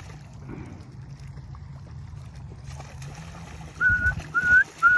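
A person whistling three short notes in quick succession about four seconds in, each note rising slightly at the end: a recall whistle calling the puppy back. Before the whistles, only a faint steady low hum and light water noise.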